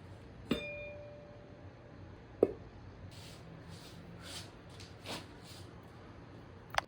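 Kitchen tableware being handled: a ringing clink about half a second in, a sharper knock a couple of seconds later, a few soft brushing sounds, and a short click near the end.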